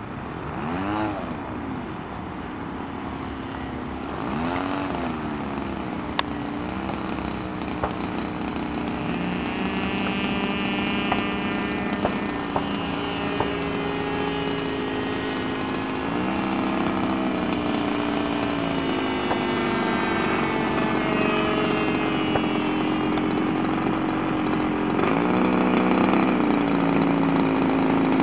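Small gasoline engine of a radio-controlled model airplane running, its pitch rising and falling several times with throttle changes, growing slightly louder toward the end.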